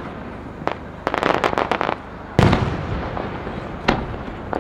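Aerial firework shells bursting: a sharp bang, then a rapid string of crackling pops lasting about a second, a loud boom about halfway through with a long fading tail, and two more bangs near the end.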